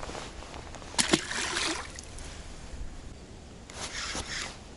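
Water splashing and sloshing at the river's edge, with two sharp knocks about a second in, over a low wind rumble on the microphone.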